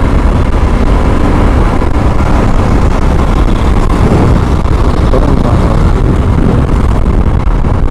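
Steady wind rush on the microphone over the running engine of a Bajaj Pulsar 150, an air-cooled single-cylinder motorcycle, riding at about 45–50 km/h.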